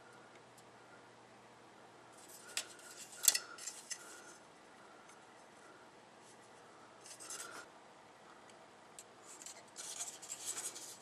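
Plastic model-kit runners clicking and rattling as they are handled and turned over, in short bursts about two seconds in, around seven seconds and near the end, with one sharp click about three seconds in.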